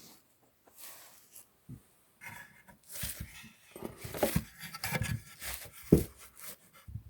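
Handling noises close to the microphone: irregular rubbing and scraping with soft knocks, the loudest a sharp knock about six seconds in.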